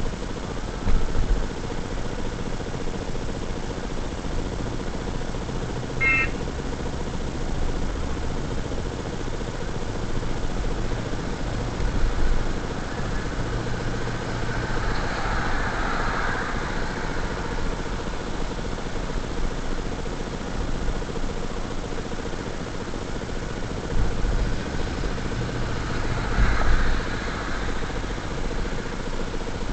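Car engine and road rumble heard from inside the cabin on a dashcam microphone, driving on a wet road, with tyres hissing through standing water about halfway through and again near the end.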